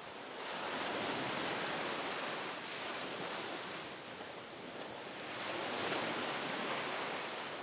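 A soft rushing noise, like surf, that swells and eases about three times.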